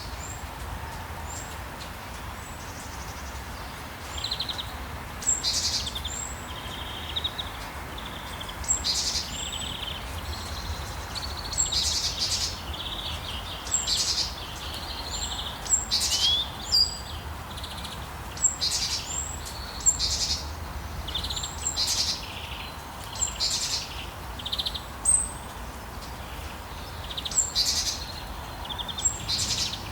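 Birds chirping: short, sharp high calls and brief trills every second or so, over a steady low background rumble.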